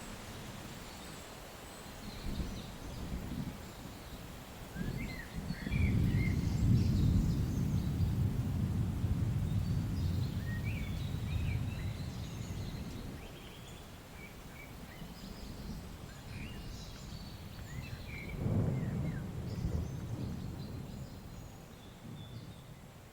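Distant thunder rumbling, swelling about six seconds in and rolling away over several seconds, with a shorter rumble near the end. Small birds chirp now and then over a faint hiss of rain.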